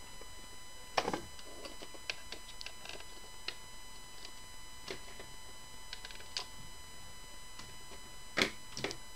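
Scattered light clicks and knocks of the plastic housing of a Davis VantageVUE weather sensor suite being handled and turned over on a table, with a louder knock about a second in and two more near the end.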